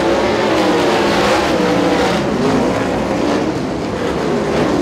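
Several sprint cars' V8 engines running hard together on a dirt oval, their pitches rising and falling as they drive through the corners and down the straights.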